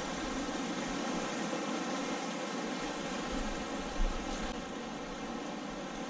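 Fast river current rushing along the bank: a steady hiss of flowing water, with a small knock about four seconds in.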